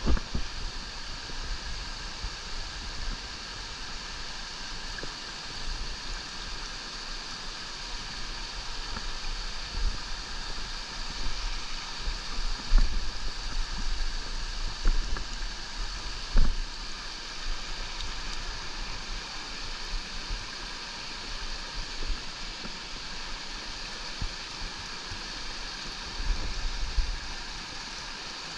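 Small mountain creek rushing and splashing over rocks in a steady wash, with occasional low thumps and bumps close to the microphone.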